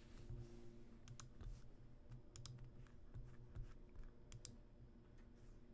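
Near silence with faint computer clicks in small clusters every second or so, over a low steady hum.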